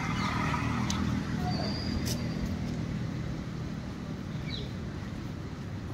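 A motor vehicle's engine running close by, a steady low hum that fades after about three seconds, with a faint bird chirp near the end.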